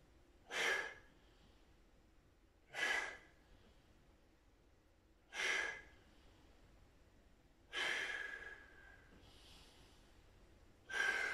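A man breathing out hard in short puffs while holding a forearm plank, five exhalations roughly every two and a half seconds, the last two longer.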